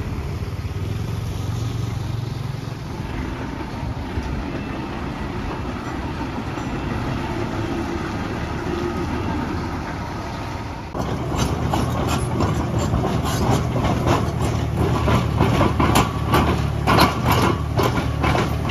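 Diesel engine of heavy earthmoving machinery running steadily. About eleven seconds in, the sound jumps abruptly to louder running with a rapid string of metallic clanks and knocks.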